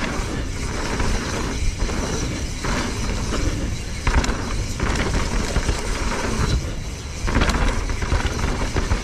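A mountain bike ridden fast down a dirt forest trail: knobby tyres rolling and crunching over dirt and loose debris, with rumbling wind noise on the handlebar or chest-mounted camera microphone.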